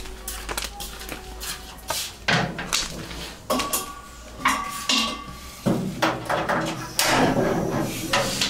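Aluminium cooking pot and lid clanking and knocking against a small gas stove as it is set up, with brief metallic ringing in the middle. Near the end a steady hiss as the gas burner is lit under the pot.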